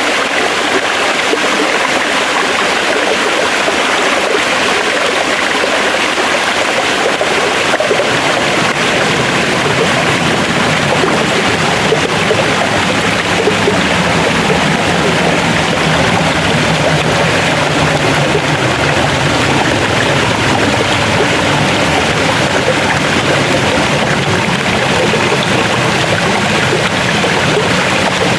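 Forest stream flowing over rocks, a steady rushing of water; the deeper part of the rush grows fuller about eight seconds in.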